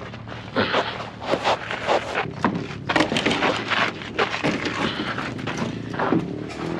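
A run of irregular knocks and clatters.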